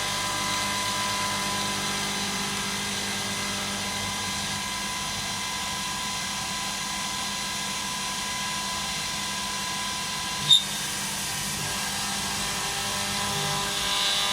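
Bridgeport Boss 10 CNC milling machine running a circular-pocket program: a steady machine whine of the spindle and axis drives, with one sharp click about ten and a half seconds in.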